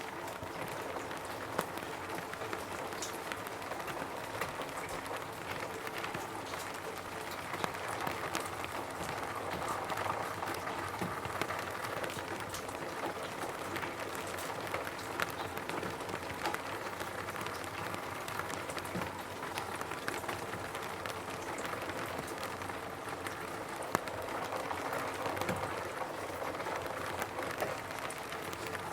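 Steady rain falling on a roof, a constant patter with many individual drops ticking sharply on top of it.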